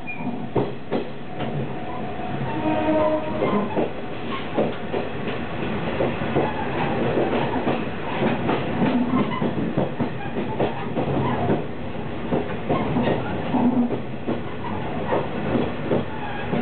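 KiHa 48 diesel railcar running along the track, heard from a middle car: wheels clacking over rail joints, with many short clicks over a steady running rumble that grows somewhat louder a few seconds in.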